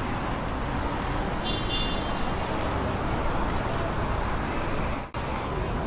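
City street traffic ambience: steady road noise from passing cars, with a brief high horn toot about a second and a half in. The sound drops out for an instant near the end.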